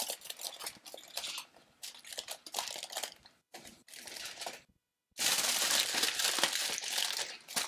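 Aluminium foil crinkling and crackling as it is folded and crimped shut by hand into a sealed parcel around a whole fish. It comes in irregular bursts, with a brief pause near five seconds in and then more continuous crinkling.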